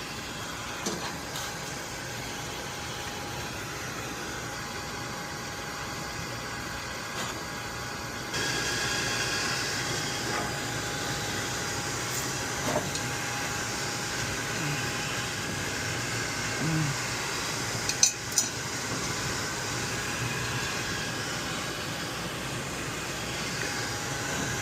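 Steady machinery noise with a faint hum and hiss, stepping up louder about eight seconds in, with a couple of short sharp metal knocks about two-thirds of the way through.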